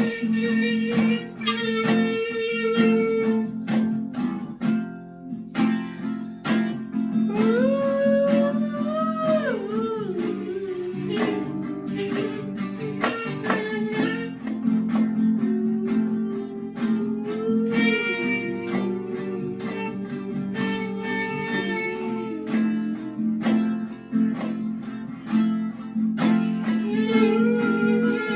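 Instrumental break of a song: guitar strumming steady chords under a lead melody that slides up and down in pitch.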